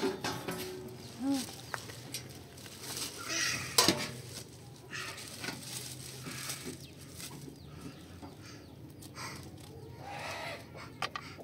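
Metal cookware clattering and scraping as pans and a round tray are handled on a rug, with one sharp metallic clank about four seconds in. Farm animals call faintly in the background.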